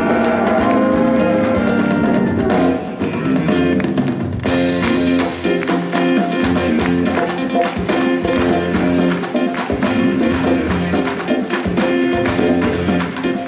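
A live band plays with electric guitars, bass, drum kit and hand drums. It holds a chord for the first couple of seconds, then about four and a half seconds in kicks into a steady rhythmic passage.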